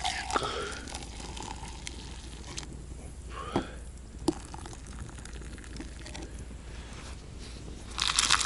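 Quiet handling sounds: a few light clicks and knocks, then a burst of rustling near the end.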